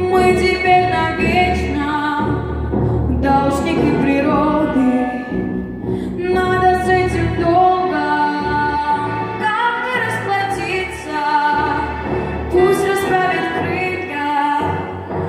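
Music: a woman singing in an operatic style over instrumental accompaniment, in phrases with short breaths between them.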